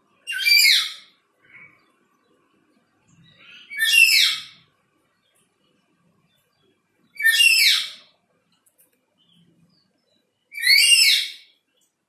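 Black-capped lory calling: four loud calls, each about a second long, spaced roughly three and a half seconds apart.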